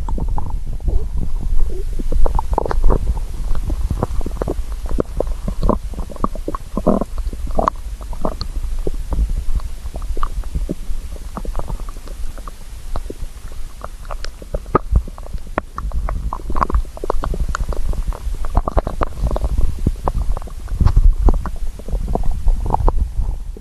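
A hungry stomach growling and gurgling. A low rumble runs throughout, broken by many short gurgles and squelches, with a drawn-out pitched gurgle about seven seconds in.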